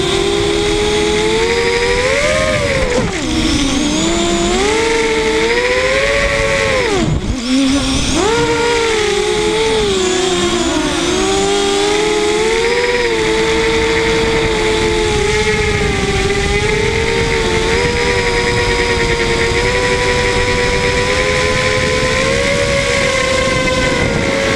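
FPV quadcopter's brushless motors and propellers whining, heard through the onboard camera. Several close pitches rise and fall together with the throttle, and the pitch drops sharply on brief throttle cuts about three and seven seconds in.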